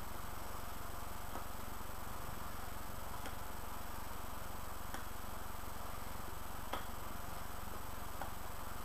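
Steady low hum and hiss of room tone, with a handful of faint, short clicks a second or two apart, the clearest a little under seven seconds in.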